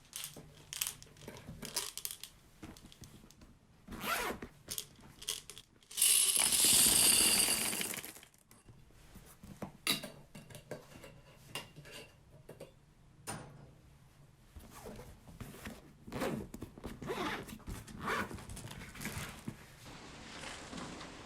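Small handling sounds, rustles and light knocks, scattered irregularly, with one loud two-second hissing rasp about six seconds in.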